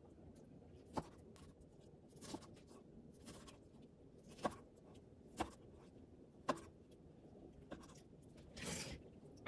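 Kitchen knife slicing a raw salmon fillet on a cutting board: several sharp taps as the blade meets the board, about a second apart, between soft slicing scrapes.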